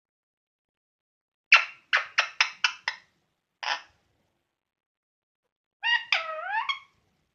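Indian ringneck parrot calling: a fast run of about six short, sharp calls, one more shortly after, then near the end a longer call that dips and rises in pitch.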